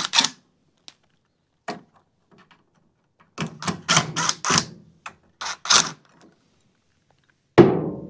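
Cordless driver backing out Phillips-head screws, in short bursts of rapid tapping strokes. Near the end comes one loud thunk with a brief ring.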